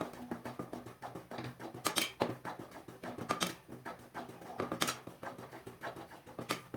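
A spoon or spatula stirring dry gram flour in a heavy-bottomed pan, scraping the bottom with irregular clicks and knocks as the flour roasts.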